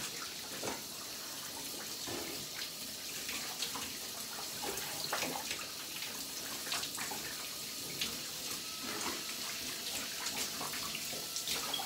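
Shower spray running steadily in a tiled stall, with irregular small splashes as water hits the body and the floor.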